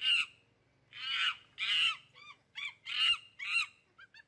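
Baboon screaming in alarm: about eight short, high, harsh calls in quick succession, a few of them longer and louder than the rest.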